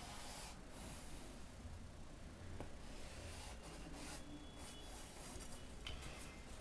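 Faint scratching strokes of a marker drawn along a ruler on fabric, marking the cutting lines, with a few light clicks.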